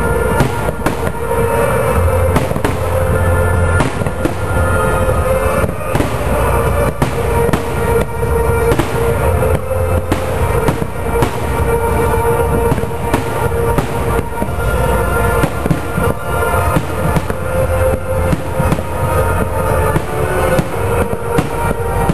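Aerial fireworks bursting in a continuous run of bangs and crackles, with music playing alongside.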